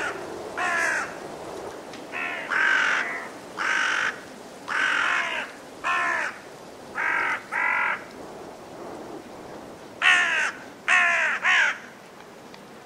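A crow cawing repeatedly: about eleven harsh caws in short series of one to three, with a pause of about two seconds near the end.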